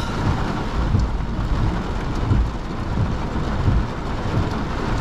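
Torrential rain drumming on a car's roof and windshield, heard from inside the car: a dense, steady hiss with low, irregular rumbling underneath.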